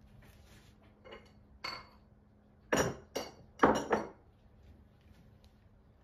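Brief scuffle between pet cats: several sharp, loud bursts in quick succession, the loudest cluster just before the middle.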